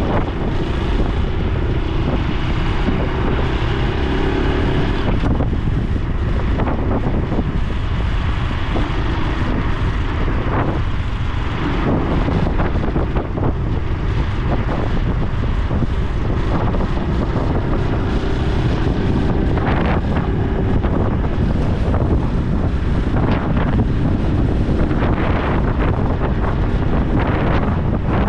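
Honda Super Cub C125's air-cooled single-cylinder four-stroke engine and exhaust running steadily while riding, with heavy wind buffeting on the microphone.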